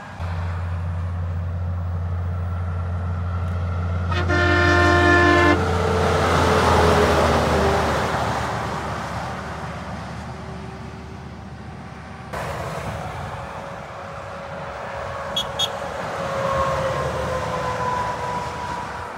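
A heavy truck passing close by with its engine droning, and about four seconds in one blast of its air horn lasting about a second and a half. Its pitch falls as the truck goes past. Later another truck passes with a falling whine, and two brief high pips are heard.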